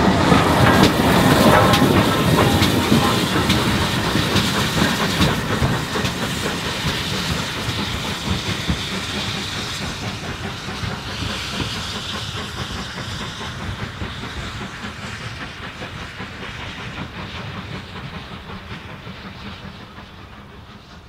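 Heritage railway coaches rolling past, their wheels clicking over the rail joints. The rumble fades steadily as the train draws away.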